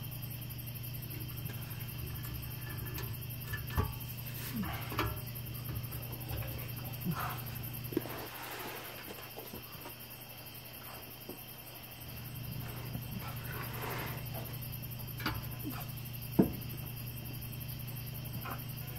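Scattered knocks and clunks of a new muffler being handled and worked onto its rubber hanger mounts under a car, the loudest a sharp knock near the end. Crickets chirp steadily behind it, over a low steady hum.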